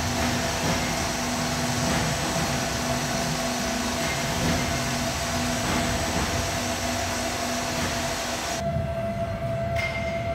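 A hydraulic power pack running steadily, a constant motor-and-pump hum under a hiss, while a radio-remote-controlled bench moves the piston rod at the cylinder barrel. Near the end the hiss drops away abruptly and the steady hum carries on.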